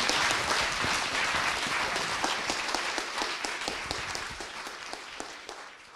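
Audience applauding in a room. The clapping fades gradually and thins to a few scattered claps near the end.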